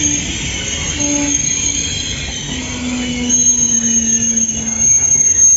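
Trenitalia Intercity passenger coaches rolling slowly along the platform, their steel wheels squealing against the rails over a low rumble. A high, thin squeal sets in about three seconds in and holds steady while the sound grows louder.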